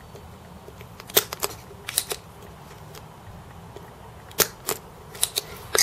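Sharp, irregular clicks and taps of desoldering tools, a solder sucker and a soldering iron, working the joints of a potentiometer on a small circuit board to free it.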